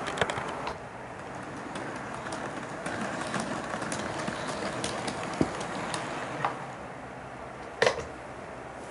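HO-scale model train, an EF81 electric locomotive with its coaches and wagons, rolling along sectional track: steady running noise with wheels clicking over the rail joints, and one sharp, louder click near the end.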